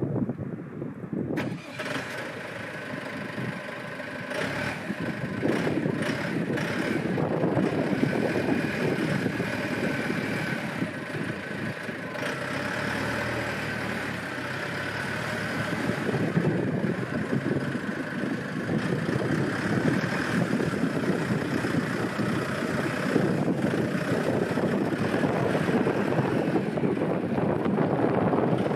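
Mini backhoe loader engine running and working, its loudness rising and falling as it works, with a steady higher whine over the engine noise.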